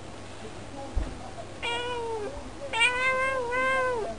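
Calico cat meowing in long, drawn-out, talk-like calls: one, then two more run together; a short soft knock about a second in.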